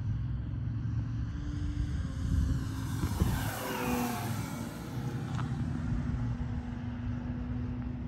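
Engine of a Seagull Sport Cruiser RC model airplane passing in a flyby, its pitch falling about halfway through, over a steady low rumble.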